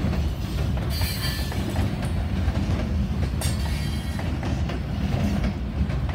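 Freight train boxcars rolling past close by with a steady low rumble of wheels on rail. A brief faint high wheel squeal comes about a second in, and a sharp clank about three and a half seconds in.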